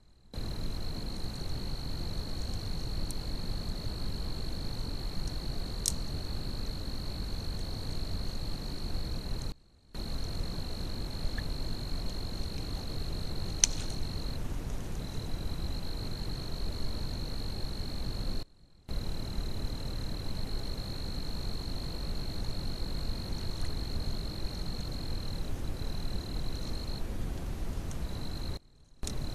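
Night-time outdoor ambience picked up by a trail camera: a steady high-pitched trill over a low rushing noise, with a couple of faint clicks. It drops out briefly three times where separate camera clips are joined.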